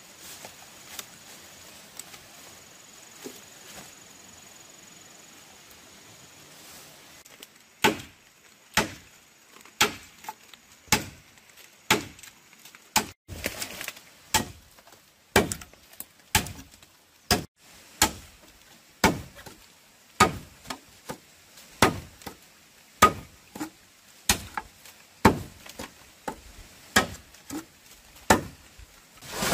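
Repeated chopping strokes, about one a second, with sharp, even blows that begin several seconds in after a faint background.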